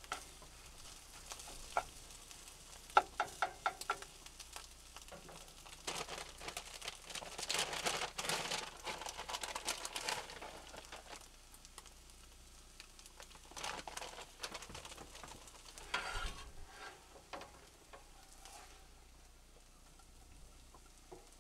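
Cooking in a pan: a few sharp clinks of a utensil on the pan about three seconds in, then several seconds of scraping and stirring with sizzling, and a few more clinks later.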